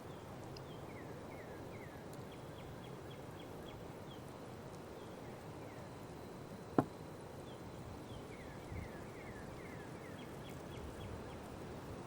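A small songbird singing faintly twice, each phrase a quick run of down-slurred chirps followed by a rapid series of short notes, over steady outdoor background noise. A single sharp click stands out about seven seconds in.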